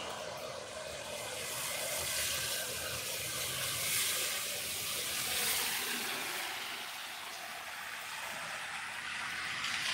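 Steady hiss of rain and car tyres on a wet road, swelling a few times as vehicles pass.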